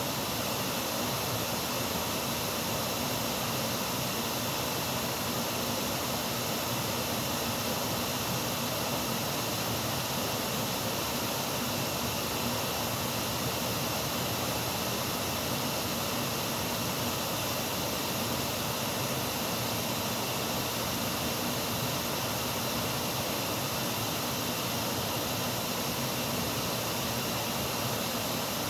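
Water falling over a dam wall: a steady, unbroken rush of water.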